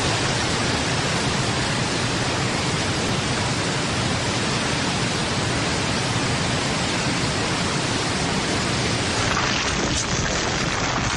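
Heavy rain falling: a steady, dense hiss.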